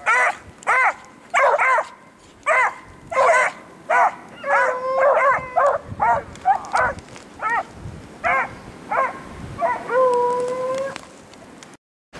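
Beagles baying on a rabbit's scent trail: a quick run of short, arched bawls from more than one hound, overlapping at times, with a longer drawn-out howl near the end.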